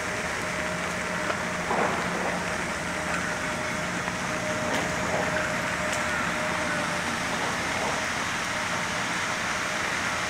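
Steady rain falling, with a constant low hum underneath.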